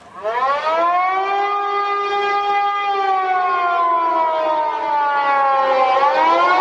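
Civil defence air-raid siren winding up at the start, then a long wail that slowly falls in pitch before it rises again near the end.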